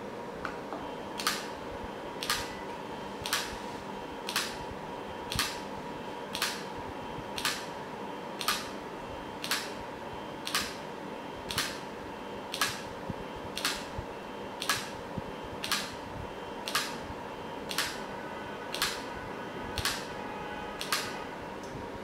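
Limit switch (microswitch) clicking twenty times, about once a second, as a NEMA 17 stepper motor's arm presses its lever in an endurance test. The test ends with the switch passing. A faint steady hum runs underneath.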